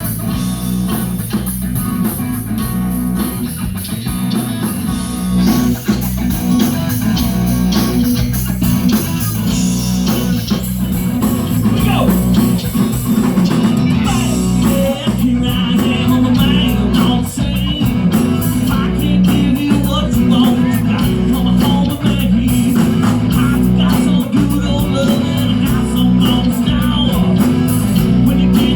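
Rock band playing live: guitar over a heavy, steady bass, with a quick, regular beat high up coming in about halfway through.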